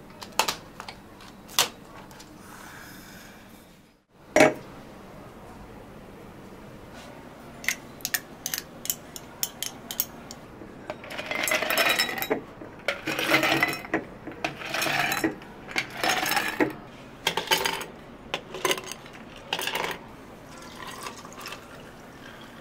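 Drink preparation at a cafe counter: sharp clinks of cups and utensils and a loud knock about four seconds in. From about eleven seconds in come about six noisy rushes, each about a second long, of liquid being poured into a cup.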